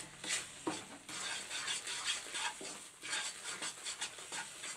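Wooden spatula stirring and scraping thick, frothy Mysore pak batter of gram flour, sugar and oil around a nonstick kadai, in quick repeated strokes a few times a second.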